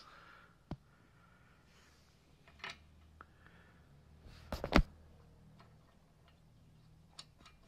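A steel wheel lug bolt clicks and knocks against the metal wheel hub as it is handled and fitted into a bolt hole. There are a few light clicks, with a sharper cluster of knocks about halfway through.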